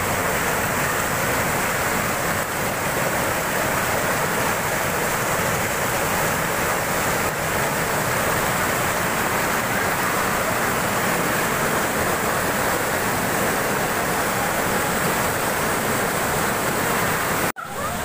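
White water of a waterfall cascading over boulders: a steady, even rush of water, broken by a brief dropout near the end.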